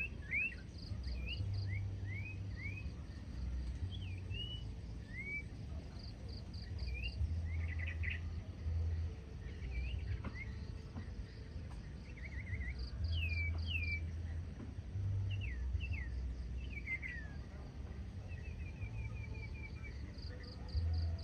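Huýt cô decoy bird singing: a run of short, clear whistled notes that sweep up and down, broken by a few quick trills. Groups of rapid high chirps recur through it, over a steady low rumble.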